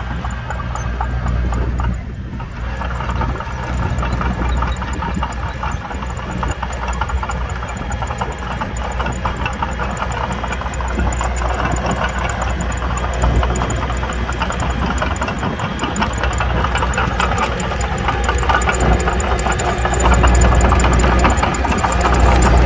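Diesel engine of a Komatsu D21P mini bulldozer running steadily, with a brief dip about two seconds in and growing louder near the end.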